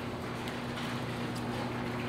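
Sectional garage door rolling up along its tracks, with the electric opener's motor giving a steady hum under the rumble of the panels.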